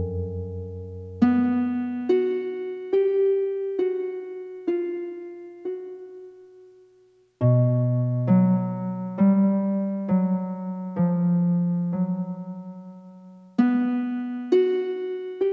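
Background music: a slow keyboard melody in a piano tone, single struck notes about one a second, each ringing and fading. About halfway through, the music dies away almost to nothing, then a new phrase starts with a low bass note.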